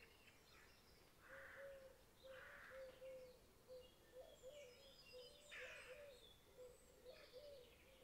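Faint birdsong: scattered chirps and twitters, with a low short note repeating about twice a second.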